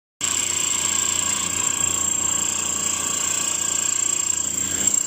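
Small 10-inch benchtop bandsaw running steadily, its motor giving a constant high whine over a steady mechanical hum; the sound comes in abruptly just after the start.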